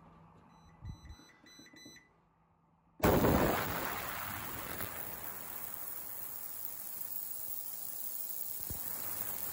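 A few faint beeps, then about three seconds in a Vevor ultrasonic cleaner starts up: a sudden loud hiss that settles into a steady hissing buzz from its water-filled tank, with thin high whining tones over it, as the ultrasound works on the submerged parts.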